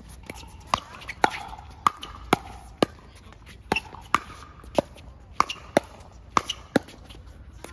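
Pickleball rally: about a dozen sharp pocks of paddles striking the plastic ball, coming roughly every half second in a quick exchange at the net.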